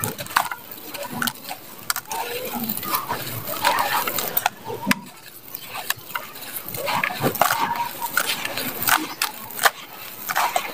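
Dry soil clods crushed and crumbled by hand, with irregular crunching crackles and loose dirt pattering down as it falls.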